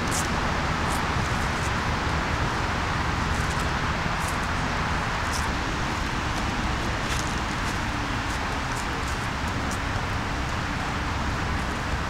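Steady outdoor background rush with a low rumble underneath, and brief faint high chirps scattered through it.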